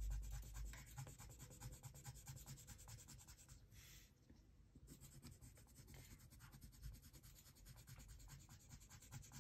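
Colored pencil shading on paper: faint, quick, scratchy strokes with a short break about four seconds in.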